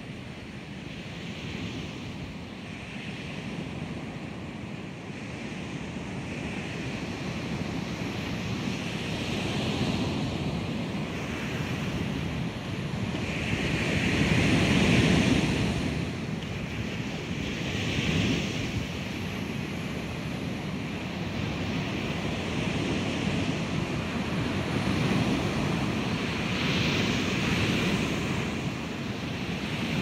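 Sampled recordings of ocean waves crashing, layered into a continuous wash of surf with several overlapping swells, the loudest about halfway through. Each wave sample is panned in 3D space according to where it is triggered.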